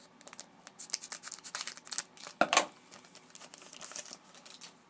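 Wrapper of a 2011-12 Panini Contenders hockey card pack crinkling and tearing as it is opened by hand, a run of short crackles with the loudest rip about two and a half seconds in.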